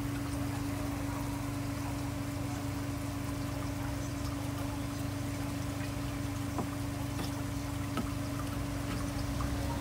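Water running over a steady electric motor hum, with a couple of faint light knocks about two-thirds of the way in.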